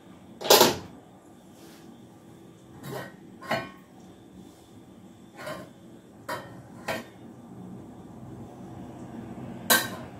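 Kitchen clatter of a stainless steel stock pot being opened after dum cooking. A heavy weight is set down on the counter with a loud knock about half a second in. Then comes a series of lighter clinks and knocks of the steel lid and pot being handled with a cloth, and a sharp metallic clank near the end.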